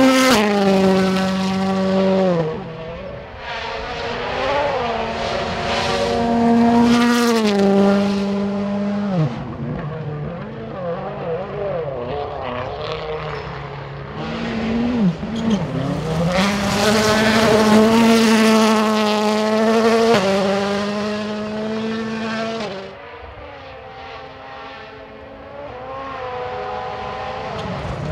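M-Sport Ford Fiesta WRC rally car's 1.6-litre turbocharged four-cylinder engine driven hard, its pitch climbing and then dropping sharply again and again through gear changes, lifts and braking. It is loudest at a long high-revving run in the middle, then falls to a lower, quieter level about three quarters of the way in.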